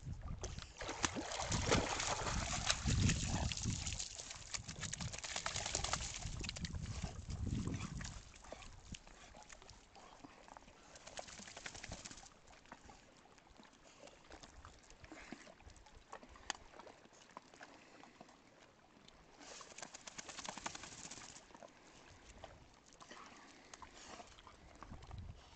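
A dog splashing and sloshing through shallow lake water as it wades ashore, loudest for the first several seconds, then quieter with a couple of short bursts of noise.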